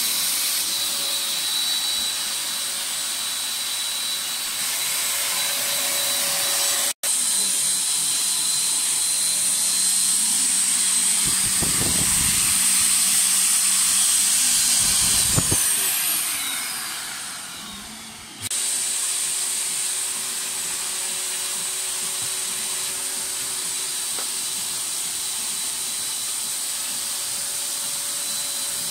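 Electric air pump running steadily, blowing air through its hose into a PVC inflatable boat's low-pressure air floor. The sound drops out for an instant about a quarter of the way in, fades and comes back a little after the middle, and a few low thumps sound near the middle.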